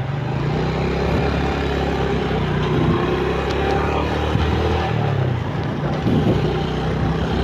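Motorcycle engine running while riding in city traffic, its pitch rising and falling a few times with the throttle, over steady road noise.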